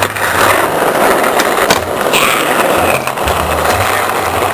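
Skateboard wheels rolling on rough asphalt, a steady loud rumble, with one sharp knock a little under two seconds in.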